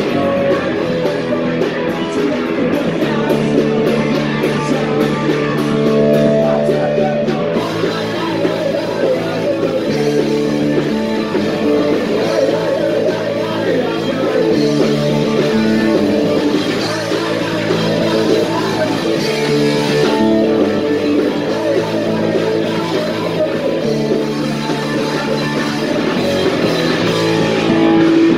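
Punk rock band playing live, with guitars and a singing voice over a steady, loud wall of sound.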